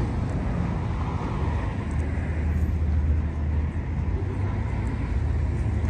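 Steady low rumble of city traffic along a riverside road.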